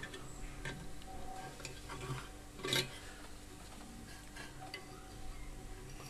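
Faint handling noise of a resistor's wire lead being worked by hand onto one of a microwave magnetron's coil terminals: small scattered metallic clicks and scrapes, with one louder click just under three seconds in.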